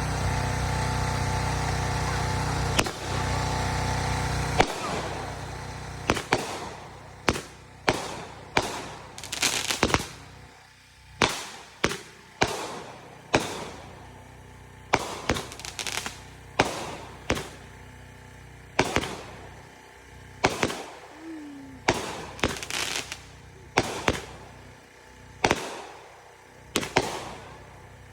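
Fireworks going off: a long string of sharp bangs, each trailing off in a rolling echo, coming at irregular intervals, sometimes more than one a second. A steady rushing noise fills the first few seconds before the bangs take over.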